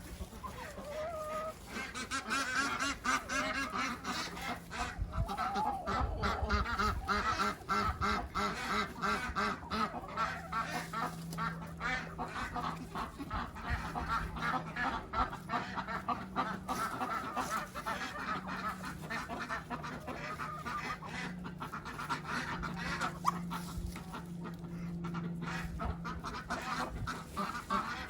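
Domestic ducks calling on and off, with many short knocks and scrapes all through and a steady low drone underneath.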